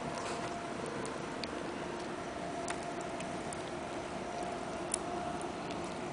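Newborn Sphynx kittens suckling at their mother, making soft, irregularly spaced clicks over a steady low hiss and faint hum.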